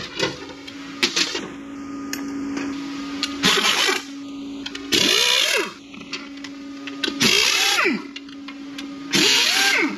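A compressed-air tool fired in four short bursts about two seconds apart. Each burst is a loud hiss whose pitch rises and falls, over a steady low hum, with a few clicks and brief squeaks before the bursts.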